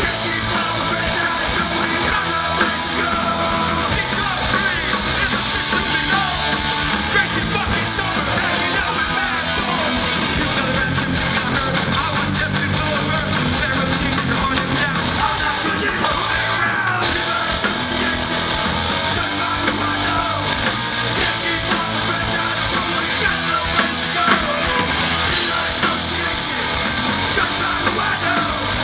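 A live hardcore punk band playing loud and fast: distorted electric guitars, bass and drums under shouted vocals, heard from the audience floor.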